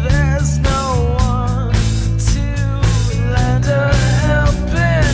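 Rock music with drums, bass and a wavering lead melody.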